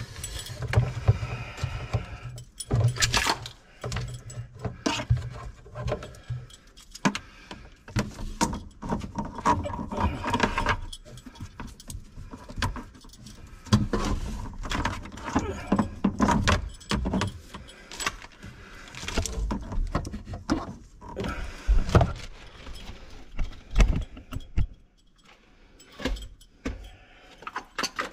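A long run of irregular metallic clinks, rattles and knocks. A low steady hum sits under them for the first several seconds, then stops.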